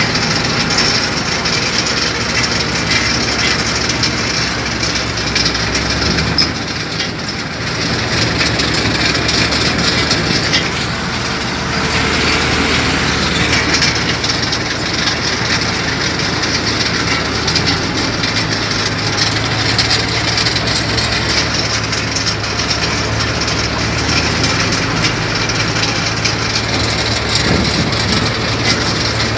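Peat-harvesting machinery running: a heavy engine with a steady rattling clatter, dipping briefly in loudness about seven seconds in.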